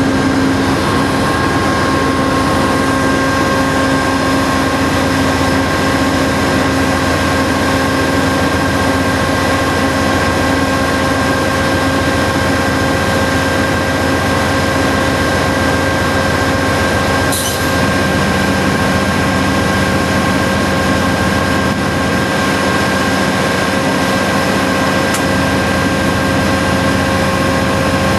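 An NJ Transit P40BH diesel-electric locomotive's engine running steadily: a loud constant drone with steady whining tones through it. There is a short sharp click about seventeen seconds in, after which a lower tone joins the drone.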